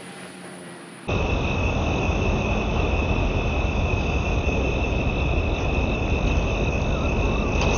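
Insects chirring steadily at a high pitch over a strong low rumble, cutting in abruptly about a second in.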